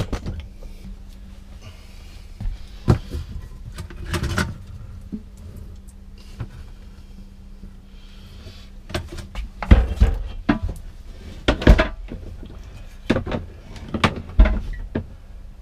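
Knocks, clunks and scrapes of a Sealand RV toilet bowl being lifted off its base and handled, with several louder thumps in the second half as it is lowered to the floor.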